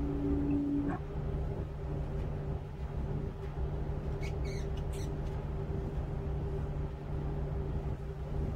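Tugboat's diesel engines droning steadily, heard from the wheelhouse. A steady tone stops about a second in, and a couple of faint short squeaks come around the middle.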